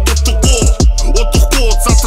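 Hip hop music with a steady beat of deep bass kicks that drop in pitch.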